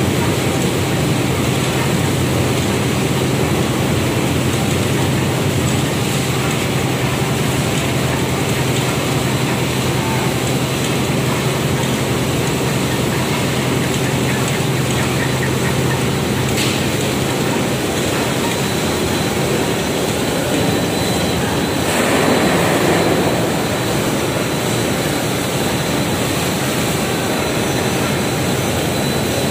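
Steady machinery noise from a running 78-inch super jumbo jigger textile dyeing machine and the mill around it, its rollers winding the cloth through. A low hum drops out about halfway through, and the noise swells briefly a few seconds later.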